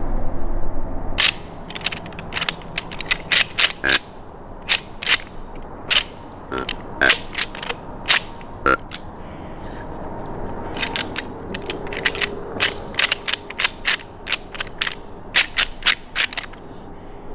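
Irregular series of sharp clicks and clacks, hard objects knocking together, in two runs: a scattered one over the first few seconds and a faster, denser one in the second half.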